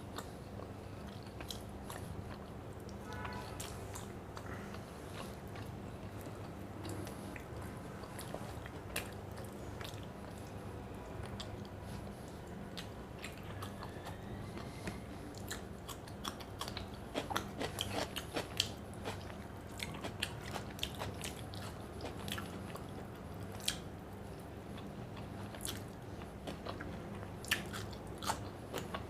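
A person chewing and eating up close, with wet mouth clicks and crunchy bites, most densely a little past the middle. A steady low hum runs underneath.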